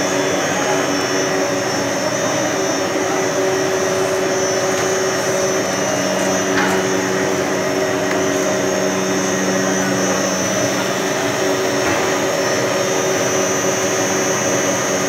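Plastic granule-making machine (recycling extruder line) running: a steady machine drone with several steady humming tones and a high whine over it.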